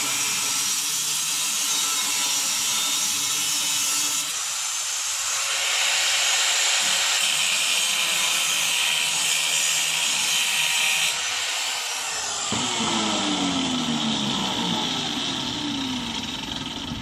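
4.5-inch angle grinder with a cutoff wheel cutting and grinding eighth-inch steel plate, a continuous loud screech that changes abruptly a few times. In the last few seconds its pitch falls as the wheel slows.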